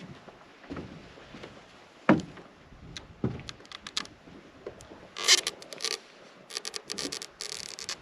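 Handling noise: scattered knocks and clicks, the loudest about two seconds in, then several bursts of rustling in the second half.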